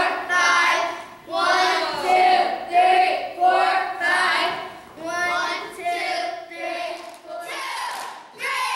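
A squad of young girls chanting together in unison in a steady rhythm, about one call every two-thirds of a second. Near the end the calls change to higher-pitched shouting.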